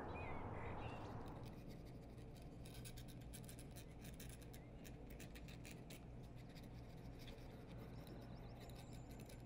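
Feather quill pen scratching across paper in a run of short, quick strokes, faint.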